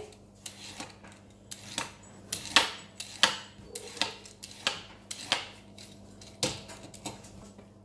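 Vegetable peeler scraping down a carrot in quick strokes toward a plastic chopping board. About a dozen short, sharp scraping clicks come at an uneven pace, the loudest about two and a half seconds in.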